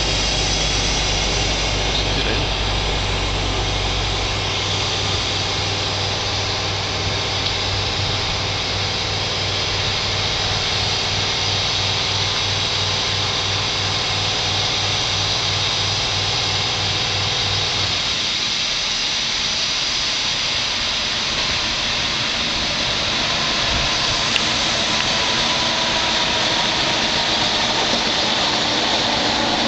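A steady low hum under a constant hiss until about two-thirds of the way through, then the whine of a MÁV V43 electric locomotive coming up as it approaches, growing a little louder near the end.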